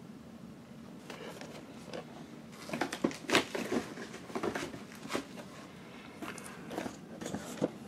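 Cardboard action-figure boxes with plastic windows being handled and shuffled: irregular crackles, taps and scrapes that start about two and a half seconds in.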